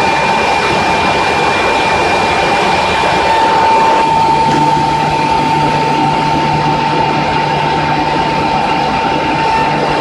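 Edge sanding machine running steadily as it sands and mills the edge of a panel: a loud, even noise with a constant high whine. A lower hum joins about four seconds in.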